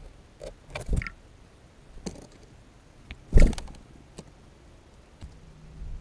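A few irregular knocks and thuds, the loudest about three and a half seconds in.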